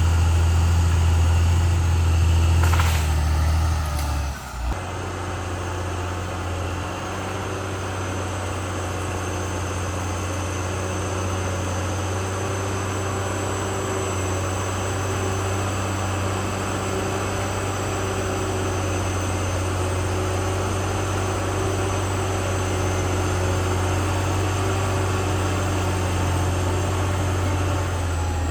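CAT D6R XL bulldozer's diesel engine running with a strong, steady low drone. About four seconds in it drops to a quieter, even run.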